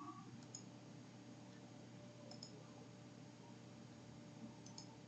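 Near silence: faint room tone with a few soft computer mouse clicks, about three times.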